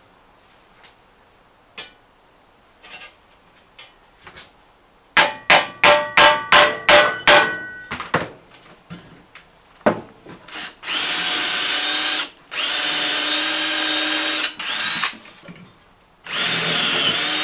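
About eight sharp, ringing hammer blows in quick succession: a hammer driving the new wooden handle into the spade's steel socket. After a pause and a single knock, a cordless drill runs in three steady bursts, drilling rivet holes through the steel socket and the wooden handle.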